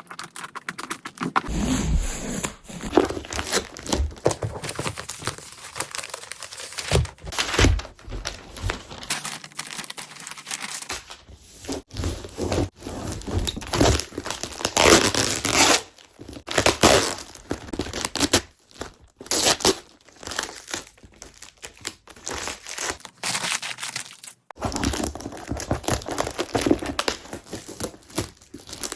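A cardboard box being opened by hand: packaging torn open and papers crumpled, in an irregular run of rips and rustles.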